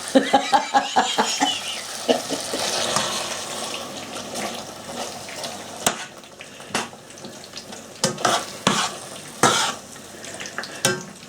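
Chicken in korma sauce sizzling in a pan while a spoon stirs it, scraping along the pan and knocking against it several times in the second half.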